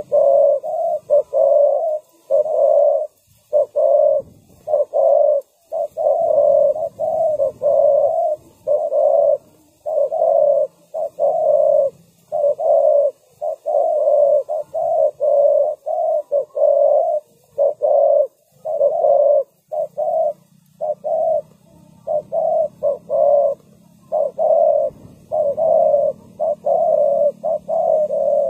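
Spotted dove cooing: a continuous series of short coo notes, about two a second, broken into phrases by brief pauses. It is a decoy bird calling to lure wild doves.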